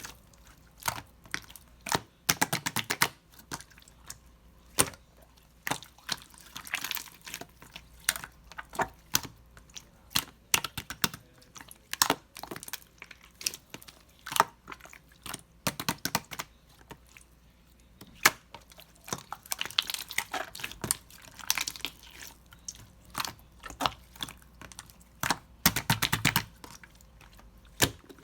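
Clear slime marbled with pink being squeezed and poked by hand, giving irregular sharp clicks and pops, with a few short crackling clusters.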